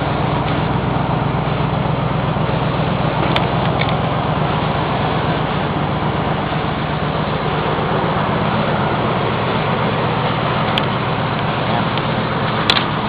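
1997 Chevy Tahoe's engine idling steadily, with a few sharp clicks, the loudest near the end.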